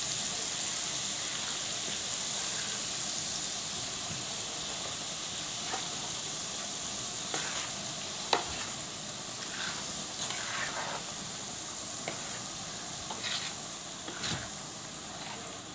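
Hot oil sizzling as ground pickle masala is stirred into it in a steel bowl, the steady sizzle slowly dying down. A few sharp clicks and scrapes of the steel spoon against the bowl come in the second half.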